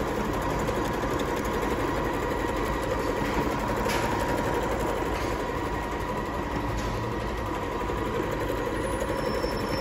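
Janome DC6100 electronic sewing machine running continuously at a raised speed setting while sewing a decorative star stitch: rapid, even needle clatter over a steady motor whine.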